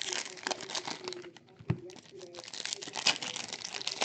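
Trading-card pack wrappers crinkling and tearing as packs are opened by hand: a dense run of irregular crackles, with a dull knock about two seconds in.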